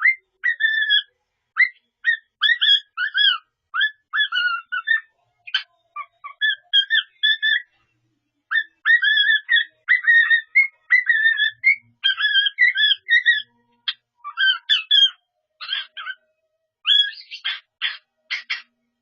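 Pet cockatiel whistling phrases of learned tunes in runs of short clear notes with brief pauses, ending near the end in a quick run of harsher, scratchy notes.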